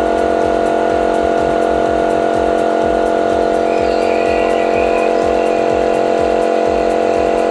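Orion 100-SPX jet cleaner (electric high-pressure washer) running steadily under load through a spray gun with a 25-degree nozzle: a loud, even motor-and-pump hum.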